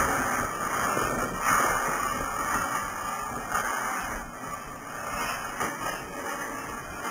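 Scuffing and rustling of clothes sliding over a tiled floor as a limp body is dragged along it by the legs, in a few uneven swells.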